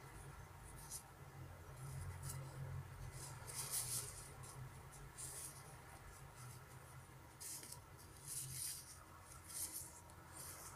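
Thin, shiny shell fabric of an ultra-thin duck-down jacket rustling and crinkling as fingers rub and pinch it, in short irregular swishes about once a second, over a faint low hum.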